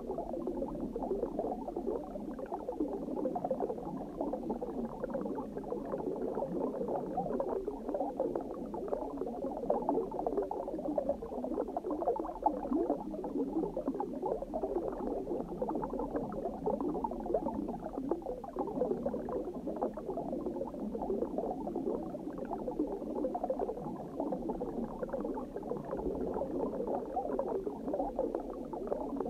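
Muffled underwater ambience: a steady, dense bubbling and gurgling of water with no high sounds in it.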